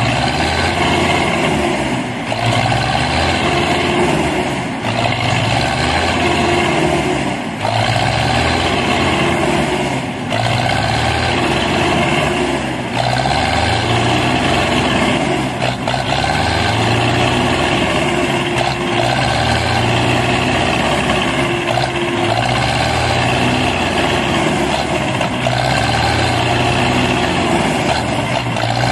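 Diesel engines of two Belarus (MTZ) tractors working hard under heavy load, hauling a loaded trolley through mud. The revs surge and sag in a steady cycle about every two and a half seconds.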